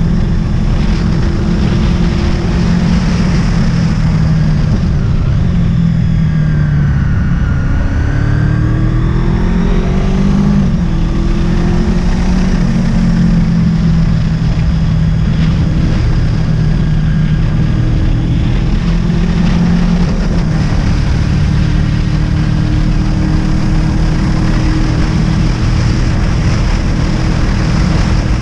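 Honda VFR800's V4 engine running on the move over a steady rush of wind and road noise; about a quarter of the way in the engine note sinks as the bike slows, then climbs again a few seconds later and holds steady.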